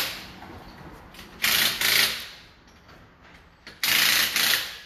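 Pneumatic impact wrench driving wheel lug nuts tight in two short bursts, each under a second, about two and a half seconds apart.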